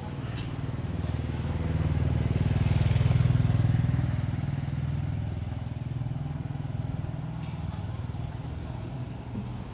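A motorcycle engine running, growing louder to a peak about three seconds in and then easing off.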